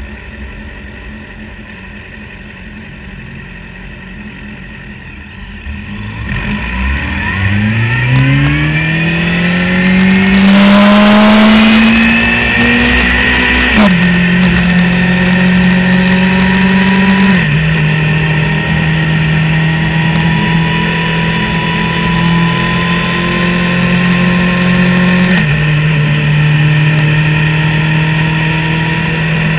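Suzuki GSX-R750 inline-four sportbike engine heard from on board: it runs low for a few seconds, then pulls away with the revs climbing steadily for about seven seconds. Three upshifts follow, each a sudden drop in pitch, with steady cruising revs between them.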